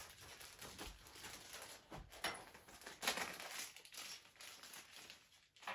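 Faint handling noises of a bag of small chassis parts being opened and sorted on a workbench: light rustles with a few soft knocks.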